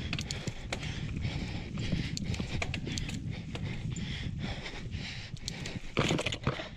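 Mountain bike riding down rough dirt singletrack: tyres rumbling over the ground while the chain and bike parts rattle in fast, irregular clicks, with a louder clatter about six seconds in.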